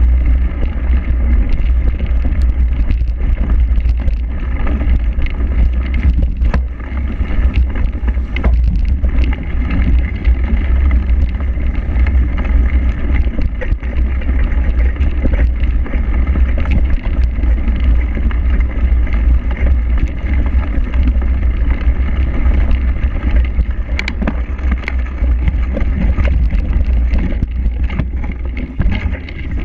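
Heavy, continuous low rumble of wind and vibration on an action camera riding a cyclocross bike over a rough grass and dirt course, with scattered knocks from bumps in the ground.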